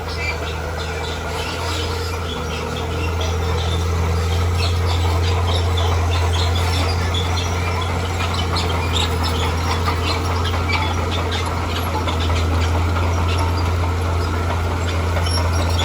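Heavy earthmoving machine, such as a bulldozer, running with a steady low engine drone and many short squeaks and clicks over it, typical of crawler tracks moving.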